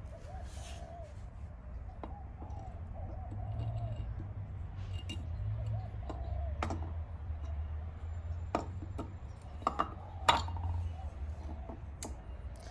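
Scattered sharp metallic clicks and clinks of tools and bolts being handled during engine work, the loudest about ten seconds in, over a low steady rumble.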